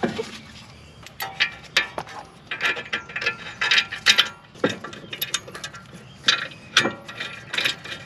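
Hand ratchet clicking in short runs, with metal clinks, as the caliper bracket bolts of a Brembo M Sport front brake are run in before torquing.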